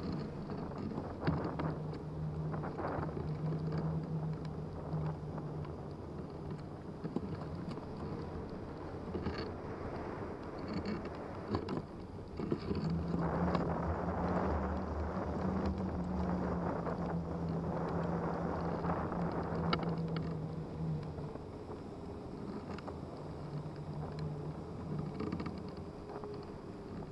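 Airflow rushing past a hang glider's frame-mounted microphone in flight, muffled by a wool wind cover, with a low steady hum that fades in and out and grows louder for several seconds about halfway through.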